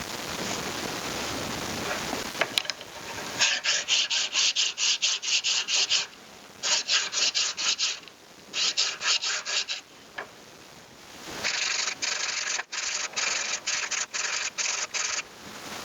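Silver ring being hand-sanded in quick back-and-forth strokes, about five a second, in several runs with short pauses between them. A steady hiss fills the first few seconds before the strokes begin.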